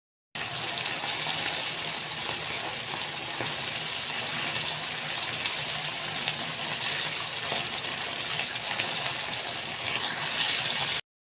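Chicken pieces in gravy simmering in a frying pan over a gas flame: a steady bubbling sizzle with fine crackles and pops. It cuts off suddenly near the end.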